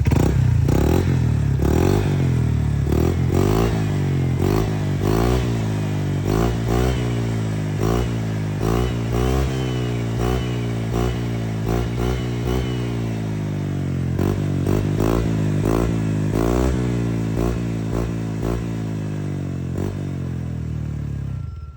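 Honda Click scooter's single-cylinder four-stroke engine through an aftermarket HUN V2 exhaust pipe, idling and revved in short blips over and over, about one a second. The exhaust note is not too loud, just right.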